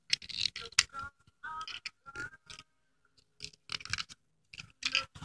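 Small plastic toy car being handled and turned in the fingers: scattered faint clicks and scrapes of plastic, with a short quiet gap a little before the middle.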